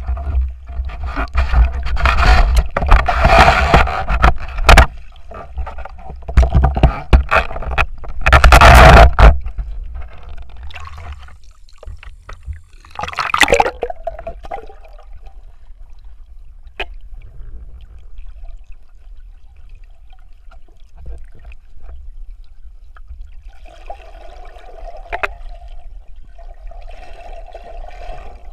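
Underwater water rushing and the scraping and knocking of a diver's gear, recorded by a camera in the water. It is loud and choppy for about the first ten seconds, quieter after that, with another short rush about thirteen seconds in and two more near the end.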